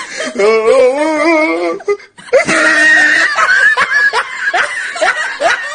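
A person's loud wordless vocal outburst: a drawn-out cry with wavering pitch, a brief break about two seconds in, then a run of short rising cries.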